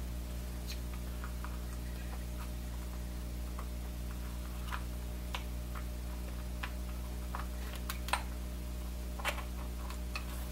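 Scattered light clicks and taps of plastic as the HP-41CV's battery pack is handled and pushed into the calculator's case, over a steady low hum.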